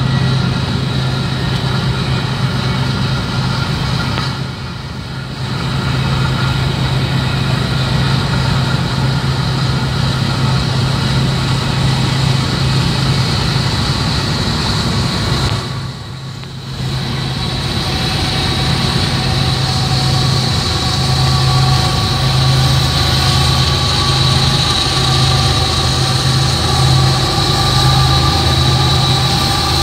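Steady vehicle noise heard inside a moving car's cabin: engine and road noise with a low drone and a thin high whine, alongside a BNSF freight train's diesel locomotives. The level drops briefly twice, about 5 and 16 seconds in.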